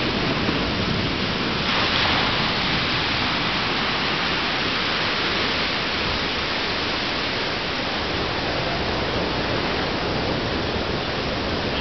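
Ocean surf washing up a sandy beach: a steady rushing hiss that swells about two seconds in and then holds.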